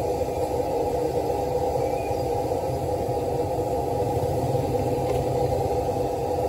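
A steady low rumble of background noise with a faint hum in it, unchanging and without distinct knocks or clicks.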